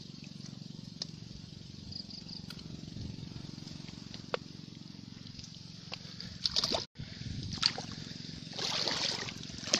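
Muffled water sloshing and gurgling around a phone's microphone held in muddy creek water, with scattered small clicks. The sound cuts out for an instant about seven seconds in, and louder splashy sloshes follow near the end.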